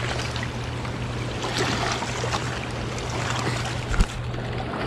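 Steady rush of water with a constant low hum, while a hooked striped bass is brought out of the water and handled. A short, sharp thump comes about four seconds in.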